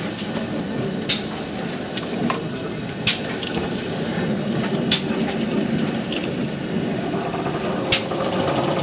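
BR (Western) 0-6-0 pannier tank steam locomotive standing with steam up: a steady low rumble and hiss, broken by four sharp metallic clicks, with a steadier steam hiss coming in near the end.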